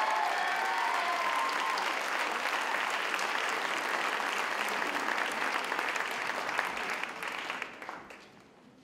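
Theatre audience applauding: dense, steady clapping that dies away near the end.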